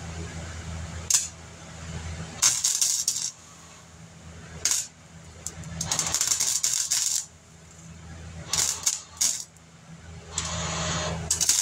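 Welder laying short tack welds on car body sheet metal: about five separate crackling bursts, each half a second to a second long, with a few sharp single clicks between them.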